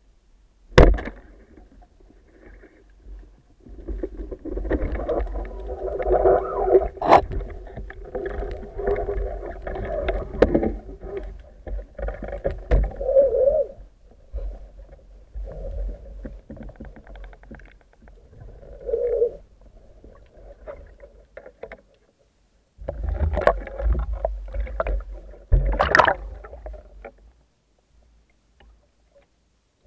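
Speargun firing underwater with a single sharp snap about a second in, followed by stretches of rumbling water noise against the camera housing as the diver swims and works the shooting line, with another sharp knock near the end.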